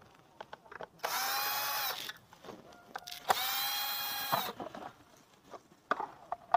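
Power drill-driver run in two bursts of about a second each, each spinning up and then holding a steady whine, undoing the bolts of a scooter's CVT cover and air filter box. A few light clicks come between the bursts.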